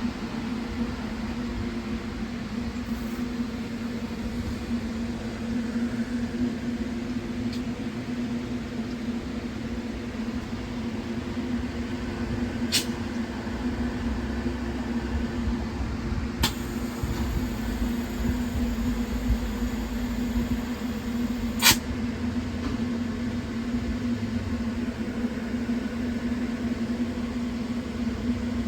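A train standing at the platform with a steady mechanical hum over a low rumble. Three sharp clicks come partway through, the last and loudest a little after twenty seconds in.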